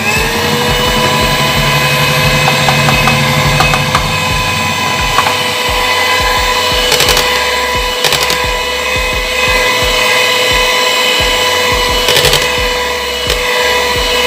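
Electric hand mixer switching on and running at a steady pitch, its beaters whisking thick cake batter in a bowl, with a few sharp clicks along the way.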